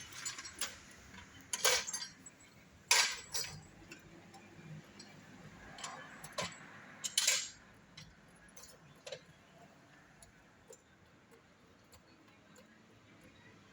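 Metal clinking as tools are handled: about eight sharp clinks and knocks over the first nine seconds, the loudest about three and seven seconds in, then only faint ticks.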